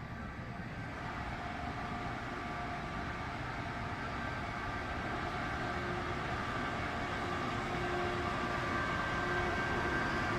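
A train pulling out of a station, its running noise growing steadily louder, with several steady tones held above the rumble.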